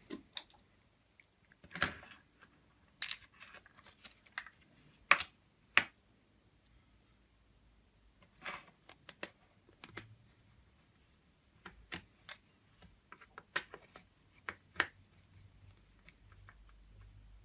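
Scattered small clicks and taps of hard plastic vacuum-cleaner canister parts and screws being handled and screwed together, coming singly at irregular intervals.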